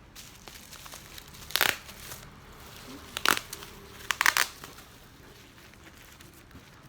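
Crinkling and rustling of crinkly material being handled by hand, in three short bursts: one about one and a half seconds in, one a little after three seconds, and a quick cluster just past four seconds.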